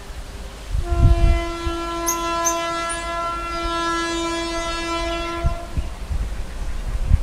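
Indian Railways electric locomotive's horn sounding one long single-tone blast of about five seconds, starting about a second in, over the low rumble of the approaching train.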